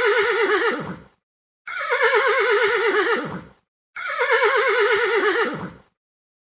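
Horse neighing: the same quavering whinny, sliding downward in pitch, plays three times, the first already under way at the start.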